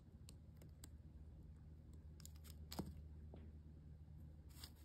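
Faint, scattered small clicks and ticks of a precision screwdriver and the little metal hinge and screw of an Oakley sunglasses temple being worked by hand, the sharpest click a little under three seconds in. A steady low hum runs underneath.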